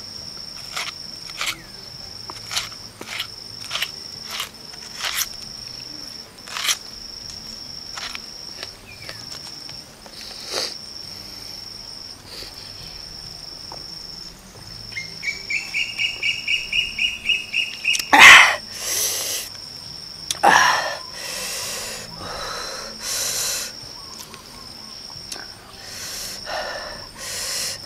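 Crisp crunching of raw red onion being chewed, a sharp crackle every half second or so, over a steady high insect buzz. Past the middle a quick run of high chirps, then a loud burst of breath and several hissing exhales as the eater reacts to the chili heat.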